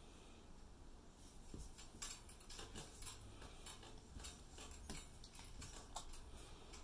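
Faint, irregular taps and clicks from a baby bouncing in a Jolly Jumper doorway jumper, beginning about two seconds in.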